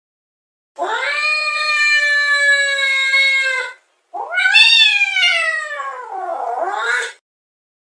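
Domestic cat yowling in two long drawn-out calls. The first is held at a fairly steady pitch for about three seconds. The second rises, slides down, then bends back up at its end.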